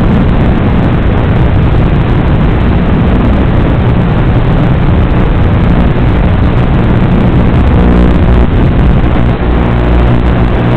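Rumble and hiss of a radio-controlled Formula 1 car driving laps, picked up loud and heavy in the low end by its onboard FPV camera microphone. A faint whine comes through about eight seconds in.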